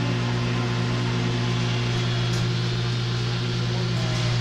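Steady low machine hum with a few higher overtones, unchanging throughout.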